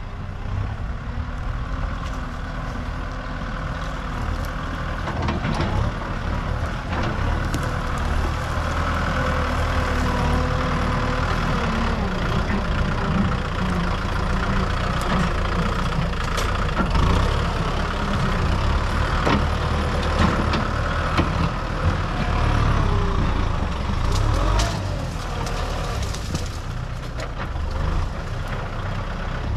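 Heavy diesel earthmoving machine working: the engine runs steadily under changing load, with a higher whine and scattered sharp metallic knocks.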